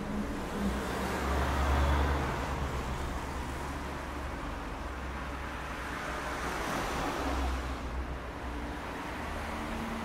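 Dense rush-hour city street traffic: a steady wash of car engines and tyre noise with a low rumble underneath. Vehicles pass close, one swelling to the loudest point about two seconds in and another around seven seconds.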